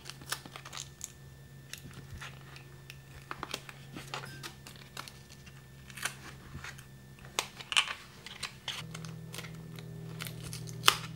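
Sticky Tuck Tape crackling and crinkling as it is pulled, pressed and smoothed onto 3D-printed plastic mold parts, with light clicks of the plastic pieces being handled. A faint steady low hum sits underneath.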